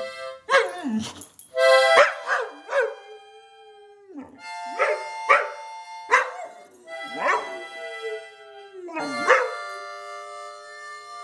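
Boxer dog howling along to a harmonica, a series of short howls whose pitch slides up and down over the instrument's held chords.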